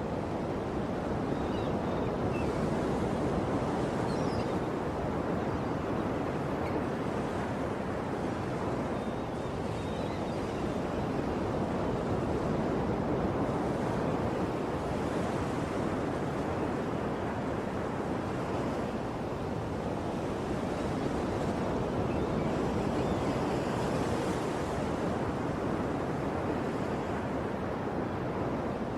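Ocean surf: waves washing continuously onto a shore, a steady rush of water that swells and eases gently every several seconds.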